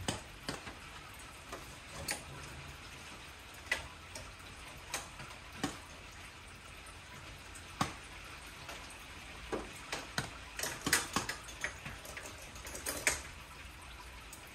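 Hand tools working on engine bolts: irregular sharp metallic clicks and taps of spanners on the fittings, grouped more closely about ten to thirteen seconds in.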